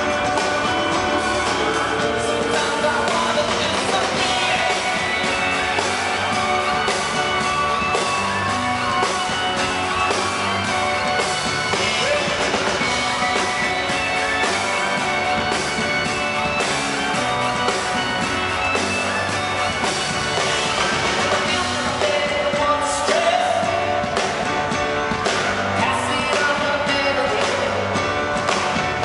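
Indie pop band playing live, a male lead singer singing over keyboard and a steady beat.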